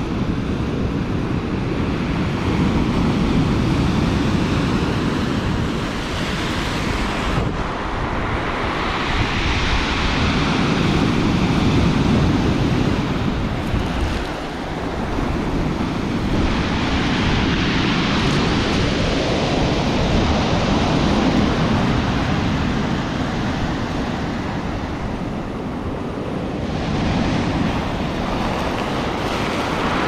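Stormy sea surf breaking on a pebble beach: waves crash and rush up the shingle, then wash back, in long surges several seconds apart.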